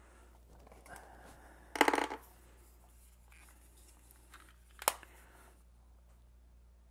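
Quiet handling of a small plastic earbud charging case and earbud, with a brief pitched sound about two seconds in and one sharp click near five seconds in.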